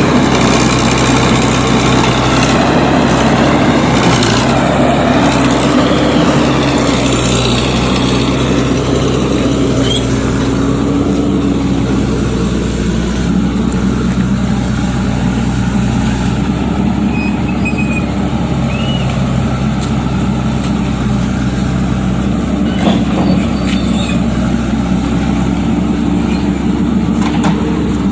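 Heavy diesel engine running steadily under varying load, with a few short knocks late on.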